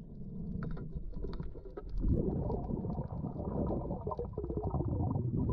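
Muffled underwater rumble and water movement heard through an action camera's waterproof housing, with scattered small clicks.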